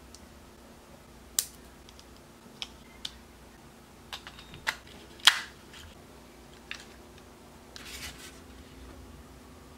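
Small sharp plastic clicks and snaps, about eight, as a Kato N scale E233 model train car is fitted back together; the loudest snap comes about five seconds in. Near the end a brief rustle as the car is set into its foam packing tray.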